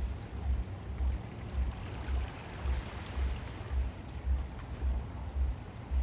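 Small waves lapping, a soft, even wash of water. Under it runs a low, regular throb, about two pulses a second, which is the loudest sound.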